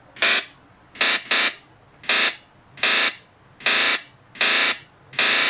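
Synthesized electric-shock (zapper) sound effect: eight short, harsh electric buzzes, mostly evenly spaced about 0.8 s apart, with two close together about a second in.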